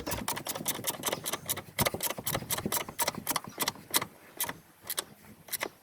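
Socket ratchet clicking as the 12 mm bolt on a car battery clamp is wound in, fast at first, the clicks spacing out toward the end.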